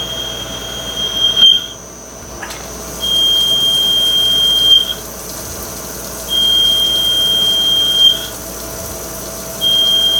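Yang CNC lathe turning bar stock at 800 RPM, over the machine's steady hum. The cutting tool squalls in one high, steady tone on each pass, about two seconds at a time and starting roughly every three seconds. That makes four passes, the last beginning near the end.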